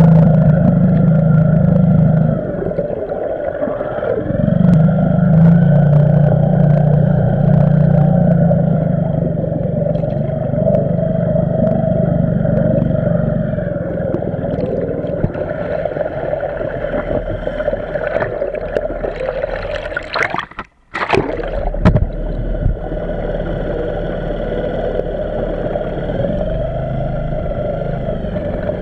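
Small outboard motor running steadily, heard through an underwater camera beside its ducted propeller: a steady drone with several held tones over churning water. The sound cuts out for a moment about three-quarters of the way through, then comes back.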